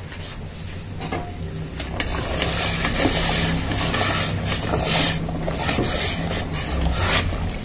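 Penne pasta being stirred in a stainless steel pot of rolling boiling water. The water bubbles steadily while the metal spoon scrapes and clicks against the pot, over a low steady hum.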